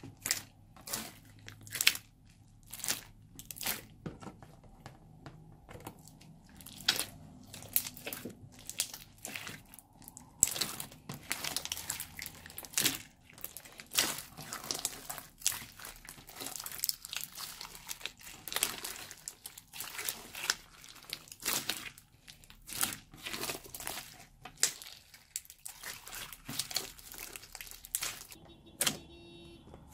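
Hands squeezing, stretching and folding a thick blue slime, giving an irregular stream of sticky clicks, pops and crackles.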